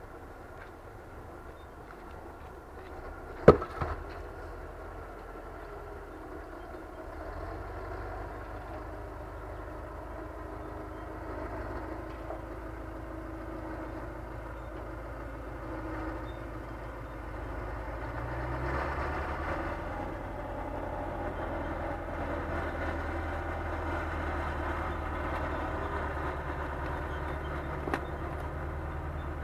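Diesel engine of a crane truck running steadily, its low hum stepping up in level about seven seconds in and again a little past the middle. A single sharp knock sounds about three and a half seconds in.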